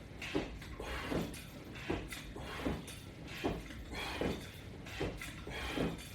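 Rhythmic exercise repetitions, about one every three-quarters of a second, each with a short creak-like sound that falls in pitch.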